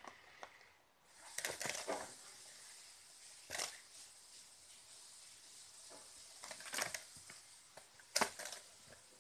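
A cat scrabbling and pawing at a plastic spring toy and a cardboard tube wedged between couch cushions. There are short bursts of scratching and rustling: a cluster early, then three more single bursts, the sharpest near the end. A faint steady hiss runs underneath.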